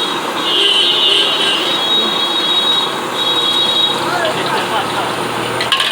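Busy street noise: traffic and background chatter in a steady wash, with a thin high tone sounding three times in the first four seconds and a few sharp clicks near the end.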